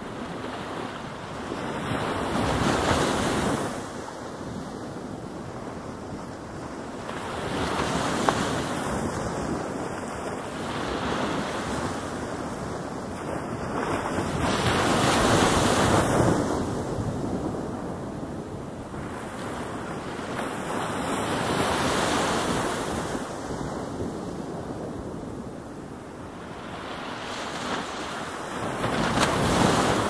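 Ocean surf: waves rolling in one after another, each a swelling rush of noise that rises and then falls away. Five waves crest, about every six to seven seconds.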